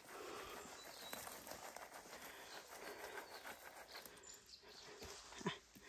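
Faint rustling of blueberry bushes being combed with a berry scoop, with a soft knock near the end.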